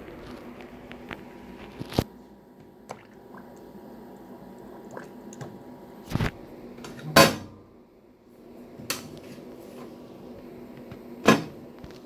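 Sharp plastic knocks and clatter from the detergent drawer of a vintage Candy Superautomatic 98 washing machine being handled and slid shut, about five knocks, the loudest about seven seconds in, over a steady low hum.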